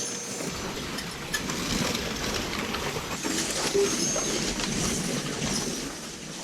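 A field of race cars running just after the start of a heat, making a steady rattling, rumbling din with scattered clicks.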